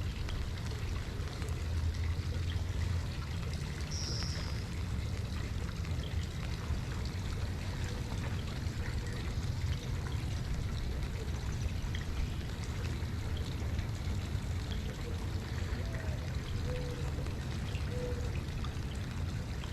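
Steady rushing of flowing water, with a constant low rumble beneath it.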